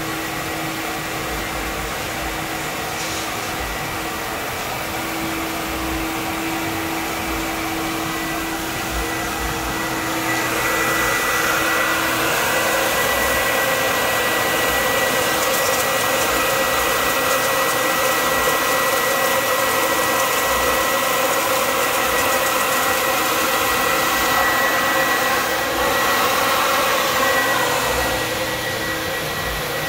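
Rhino-Mat all-in-one auto mat wash-and-dry machine running with a rubber floor mat passing through, a steady blower-like whirring. About ten seconds in it grows louder and a steady high whine joins it; it eases a little shortly before the end.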